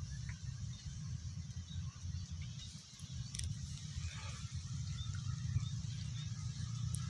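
Outdoor ambience at the water's edge: a fluttering low rumble with a faint hiss higher up, and a single sharp click about three and a half seconds in.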